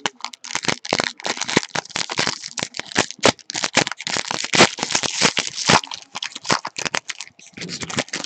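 Trading-card pack wrappers crinkling and tearing, with cards being handled as packs are opened. It is a dense, uneven run of crackles and clicks, busiest in the middle of the stretch.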